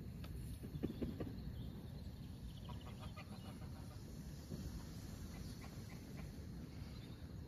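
Birds calling over a steady low background rumble: a few short clucking notes about a second in and a run of quick chirps around three seconds in.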